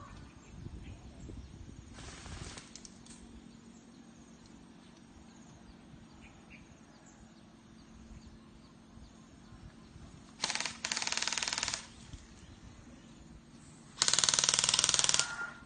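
Bursts of full-auto BB gun fire, each a rapid run of shots: a short, weaker burst about two seconds in, then two loud bursts of a second or so each, about ten and a half and fourteen seconds in.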